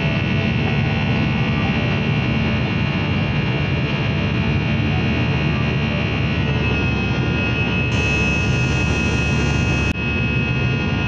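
Jet airliner cabin noise heard from a window seat in flight: a steady rush of engine and air with a high whine that grows stronger about six and a half seconds in.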